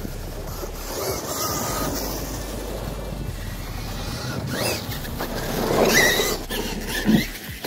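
Losi LMT Son-uva Digger RC monster truck driving on asphalt: its electric brushless motor whines over tyre noise, the whine rising with throttle about four and a half seconds in and again, loudest, around six seconds.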